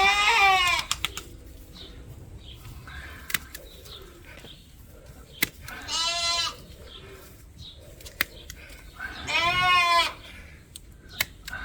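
Sheep bleating three times, each a wavering call, the last the longest. Between the bleats come a few sharp clicks, the snips of hoof shears trimming a ram's hooves.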